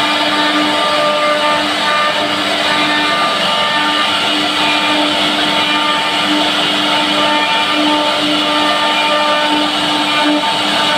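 CNC machine running: a loud, steady motor noise with a hum near middle pitch that breaks off and starts again every second or so.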